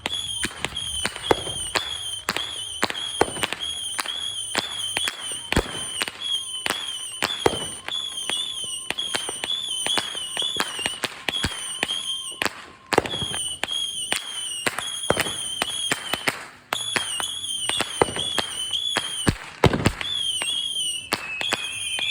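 Consumer fireworks going off in a rapid string of cracks and bangs, over a high, wavering whistle that slides down in pitch near the end.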